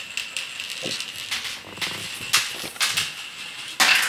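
Irregular clicks and knocks of plastic toy marble-run pieces and marbles being handled, with the loudest knock near the end.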